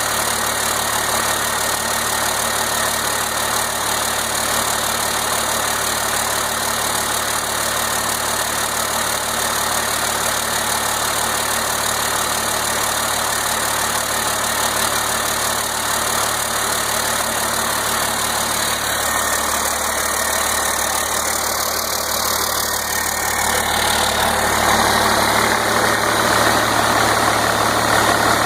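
1992 Cummins 5.9 12-valve inline-six diesel running steadily on its first run after a complete rebuild. It gets somewhat louder about three-quarters of the way through.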